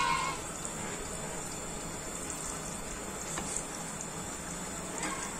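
Thickened sweet-and-sour sauce with vegetables boiling in a frying pan, with a steady bubbling, while a wooden spoon stirs it.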